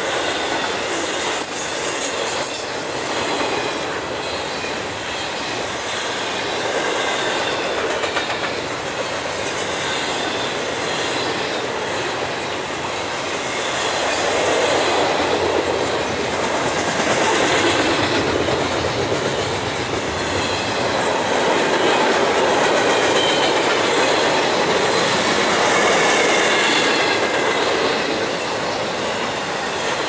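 Intermodal freight train's container and trailer cars rolling past close by, their wheels clattering over the rail joints in a steady rumble that swells and eases. Faint high squeals from the wheel flanges run through it.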